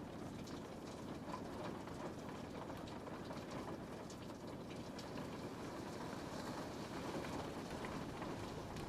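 Steady rain falling on a window, a continuous patter of many small drop ticks over a soft rushing wash.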